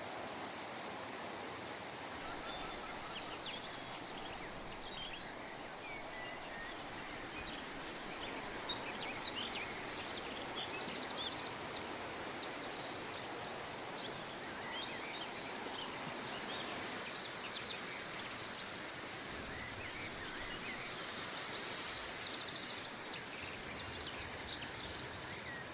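Outdoor park ambience: a steady rushing hiss with many short bird chirps and calls scattered over it.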